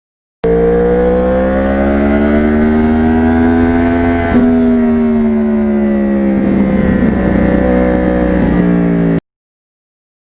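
2009 Yamaha R1 crossplane inline-four with an aftermarket exhaust, running under way at road speed. The engine note climbs slowly for about four seconds, then eases back and holds steady.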